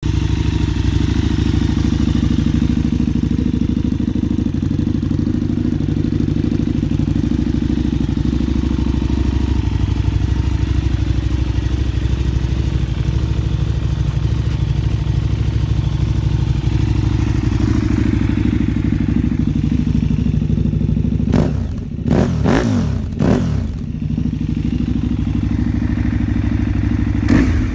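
KTM Super Duke 990R's V-twin engine idling through a GPR aftermarket exhaust, with a steady, loud, lumpy note. About three quarters of the way through it is revved in three quick throttle blips that rise and fall, then settles back to idle, with one more short blip near the end.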